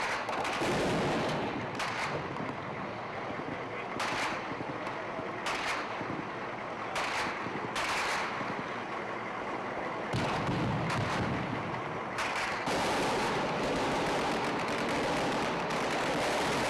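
Gunfire from a street firefight: single shots and short bursts at irregular intervals, some echoing, over a steady noisy background. From about twelve seconds in, a denser steady rushing noise takes over.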